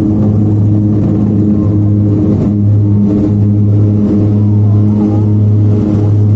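Propeller aircraft engines droning steadily, a loud low hum with even overtones.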